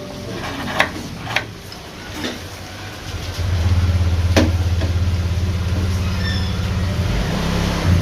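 A few sharp clicks, then a motor vehicle's engine rumbling low and steady from a few seconds in.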